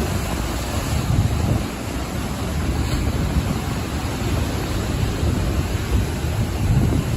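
Ocean waves breaking and washing on the shore in a steady rush, with wind buffeting the microphone as a low rumble.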